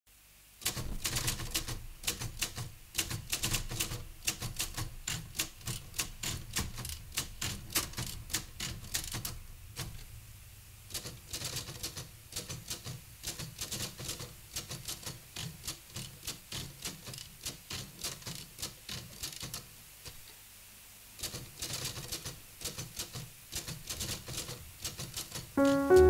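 Manual typewriter keys clacking in quick runs as a percussive rhythm, with short pauses, over faint steady low tones. Louder sustained chords come in right at the end.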